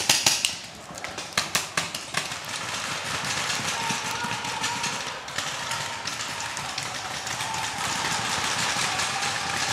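Paintball markers firing: a quick string of sharp pops in the first two seconds, then a steady rushing noise with many fainter, more distant pops scattered through it.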